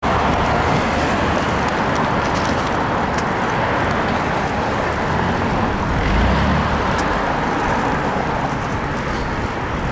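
Steady street traffic noise of passing cars, with a heavier low rumble swelling about six seconds in.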